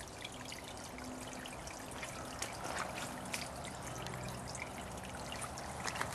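Water from an overflowing pond trickling steadily, a soft continuous splashing.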